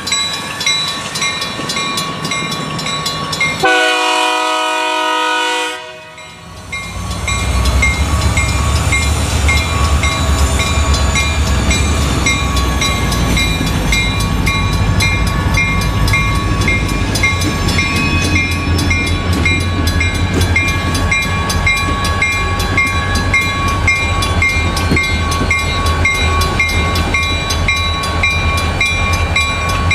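A Safetran mechanical crossing bell ringing with a steady beat while a diesel locomotive's multi-note horn sounds one blast of about two seconds, about four seconds in, and cuts off sharply. From then on a deep, steady diesel rumble from the approaching locomotives dominates under the bell.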